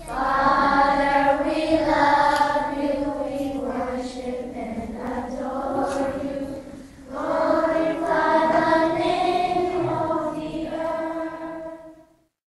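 Intro music of choir voices holding long sustained chords, in two phrases with a short break about seven seconds in, fading out near the end.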